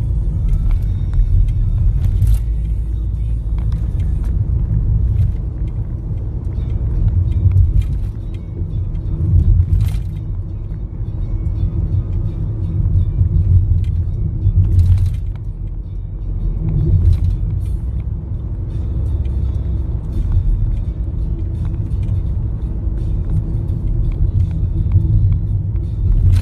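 Steady low road and engine rumble inside a moving car's cabin, with music playing in the background and a few brief clicks.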